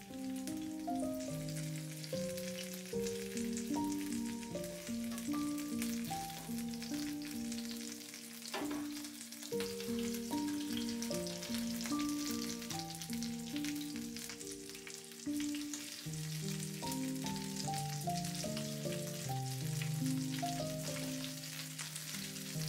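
Oil sizzling steadily as filled, folded tortillas fry in a pan, under background music playing a melody of short held notes.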